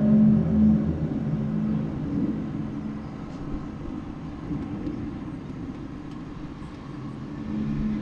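Unexplained low droning hum from outside, several deep tones held together. It fades away after about a second and swells back in near the end.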